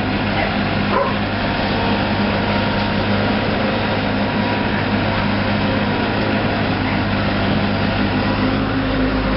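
Skid-steer loader fitted with pallet forks, its engine running steadily as it drives about with a low, even hum.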